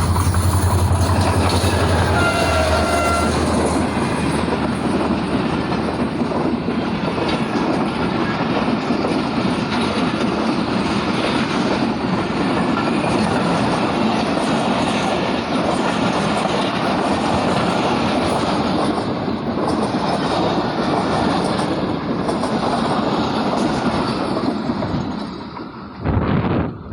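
Passenger express coaches running past at speed, with a continuous rolling rumble and clickety-clack of wheels over the rail joints. It falls away near the end as the last coach goes by.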